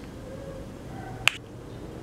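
A single sharp click a little past halfway, over low, steady background noise.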